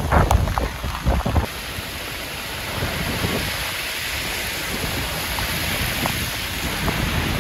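Heavy torrential rain pouring onto a wet, flooded street: a steady, even hiss. During the first second or so, gusts of wind buffet the microphone.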